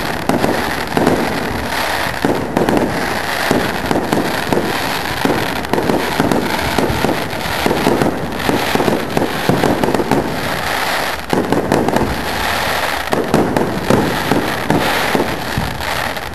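Fireworks display: aerial shells bursting with dense crackling, many sharp pops and bangs in quick, unbroken succession.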